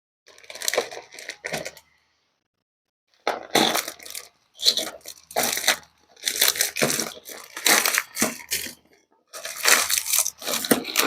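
Packaging being crinkled and torn open by hand in irregular bursts of rustling, with a pause of about a second near the start.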